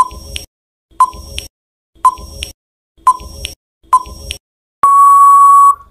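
Quiz countdown timer sound effect: five short clicky beeps about a second apart, then a long steady beep of about a second as the time runs out.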